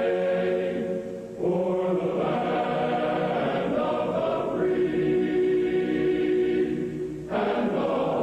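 A choir singing slow, held chords. There is a brief dip between phrases about a second in and again near the end, and a new chord comes in after each.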